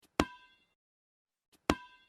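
Dodgeball sound effect looping: a sharp ball-hit with a short ringing tail, heard twice about a second and a half apart, each hit with a faint click just before it.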